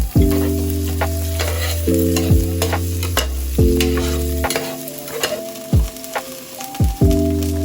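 Background music: a slow lo-fi beat with deep kick drums, sharp snare or hi-hat clicks and sustained keyboard chords that change every second or two, over a constant crackling hiss.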